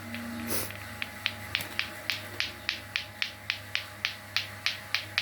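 Lato-lato clacker toy being swung, its two hard plastic balls clacking together in a steady rhythm of about four clacks a second, starting about a second in.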